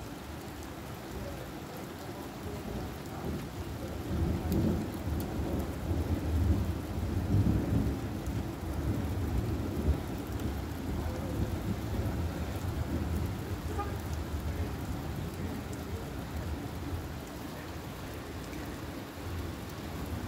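Heavy rain falling steadily in a thunderstorm, with a long roll of thunder that builds about four seconds in, is loudest a few seconds later and slowly fades.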